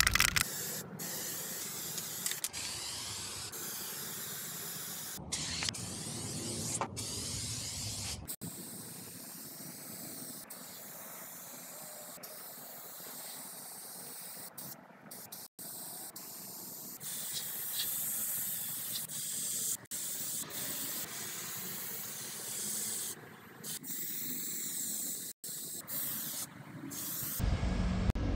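Aerosol spray-paint cans hissing in a run of spray bursts of varying length that start and stop abruptly.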